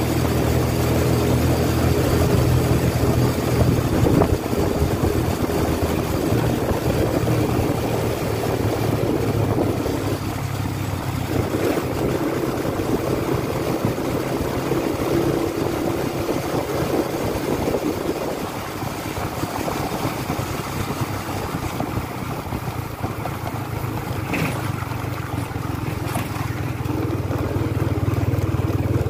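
Engine of the vehicle carrying the camera running steadily while under way, with wind and road noise over it; the engine note fades somewhat in the middle and comes back stronger near the end.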